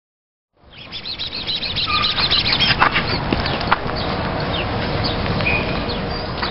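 Small birds chirping and singing, with a quick warbling trill early on and short single chirps later, over a steady low rumble of background noise. The sound starts about half a second in.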